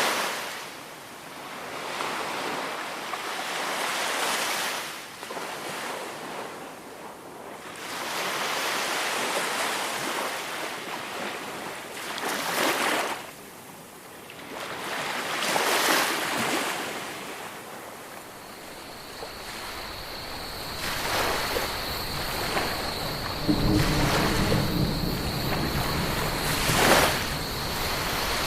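Small waves washing up a sandy beach, each surge rising and falling back every few seconds. About two-thirds in, a steady high-pitched tone joins the wash, and near the end a low rumble comes in under it.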